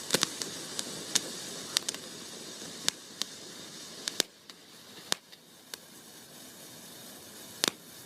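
A firework hissing while it throws sparks, with sharp crackling pops scattered through it. The hiss dies down about four seconds in, leaving a few isolated crackles.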